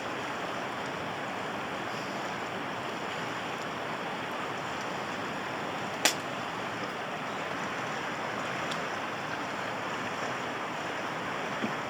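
Steady rush of flowing river water, with one sharp click about six seconds in.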